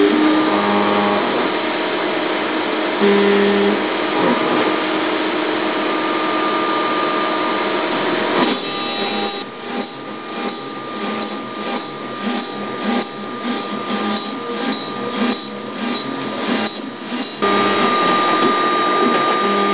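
ShopBot Desktop CNC router spindle with a quarter-inch spiral upcut bit cutting a walnut board, with a shop vacuum running for dust extraction. The sound is steady at first, then from about halfway pulses roughly twice a second, and turns steady again near the end.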